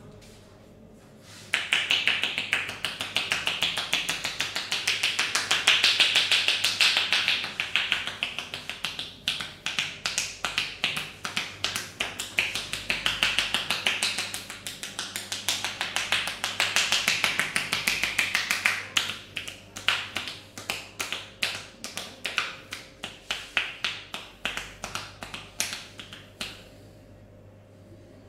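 Percussive hand massage: hands tapping and slapping on a body in a fast, even rhythm. It starts about a second and a half in and stops shortly before the end.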